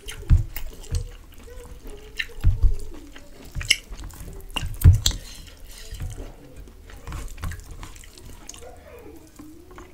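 Fingers mixing rice and duck curry in a steel plate: irregular wet squelching and clicks, with a few heavier thuds against the plate.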